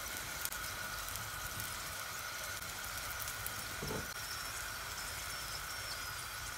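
Steady crackling sizzle like food frying in hot oil, with a faint steady high tone under it and a short falling swoop about four seconds in.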